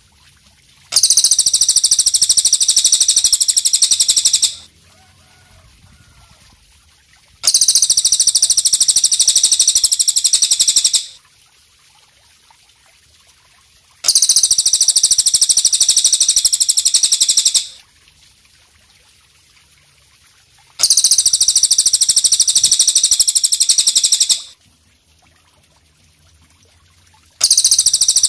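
Belalang kecek katydid calling: a very high, fast pulsing trill in even bursts of about three and a half seconds, repeating every six to seven seconds. There are four full bursts and a fifth starts near the end.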